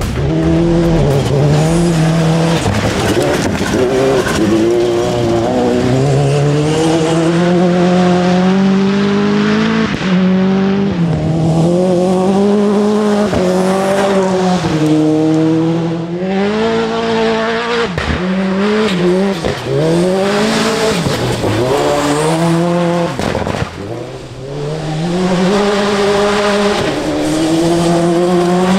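Billet Mitsubishi 4G63 turbocharged four-cylinder engine of a VW Polo open-class rally car, driven hard on gravel. The engine note climbs and drops back again and again as the car accelerates and changes gear.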